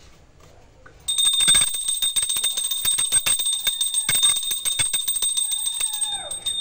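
A hand-held puja bell is rung rapidly and continuously for about five seconds, starting about a second in, with a steady high ring. A cat meows briefly near the end.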